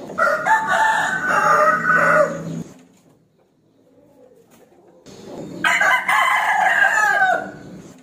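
A rooster crowing twice, each crow a long call of about two and a half seconds, the second starting about five seconds in.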